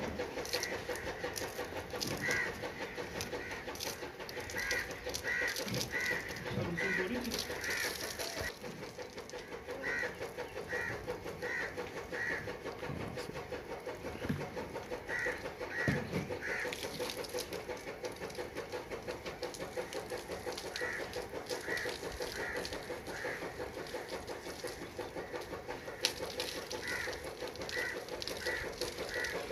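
Birds calling in short, repeated notes that come in quick runs of three to five, over a steady hum.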